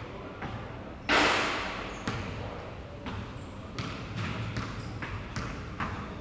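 Basketball bounced on a hardwood gym floor: one loud bang about a second in, then a run of dribbles at roughly two a second, echoing in the large hall.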